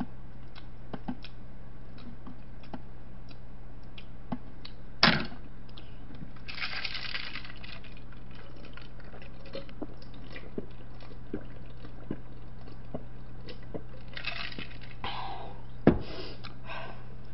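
Sipping and swallowing a drink from a glass, with small mouth and eating clicks over a steady low electrical hum. A sharp knock about five seconds in and another near the end are the loudest sounds.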